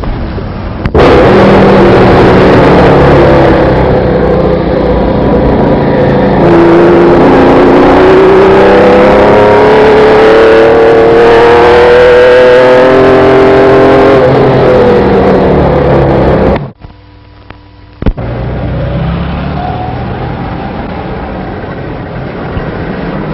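Sports car engine running hard and revving up, its pitch climbing steadily over several seconds, then cutting off sharply about two-thirds of the way through. After a short lull and a click, the engine runs again, more quietly.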